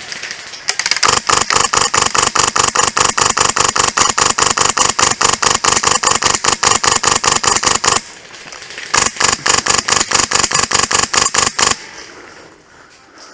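Polarstar Fusion Engine HPA-powered M4 airsoft rifle firing on full auto, a rapid even string of shots. A long burst of about seven seconds, a one-second pause, then a second burst of about three seconds.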